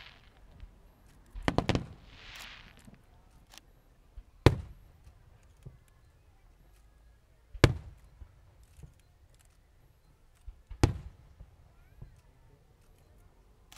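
Fireworks bursting. A quick cluster of bangs comes about a second and a half in, followed by a brief hiss, then single booms follow about every three seconds.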